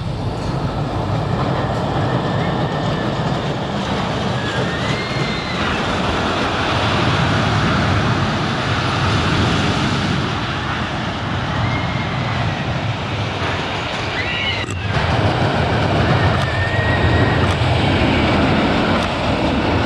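Amusement-park ride car running along its track: a steady loud rumble, with a few short high-pitched squeals over it.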